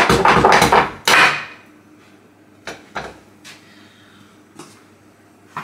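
Pizza dough being mixed by hand in a ceramic bowl: a dense burst of scraping and slapping for the first second or so, then a few scattered light knocks.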